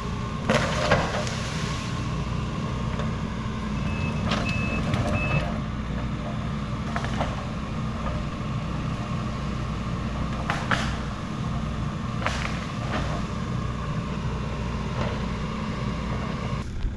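Engine of a tracked heavy-equipment machine running steadily under work, with several metal clanks. Three short back-up alarm beeps sound about four seconds in.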